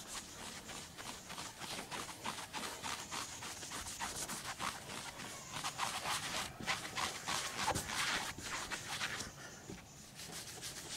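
Foam applicator pad rubbed back and forth over a plastic panel, a quick run of scuffing strokes, working scratch-remover compound into the scratches. The strokes ease off briefly near the end.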